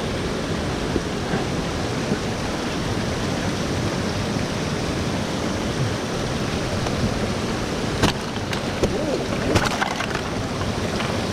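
Loud, steady rushing of a half-frozen waterfall close by, an even roar of falling water. About eight seconds in, a few sharp clicks or knocks cut through it.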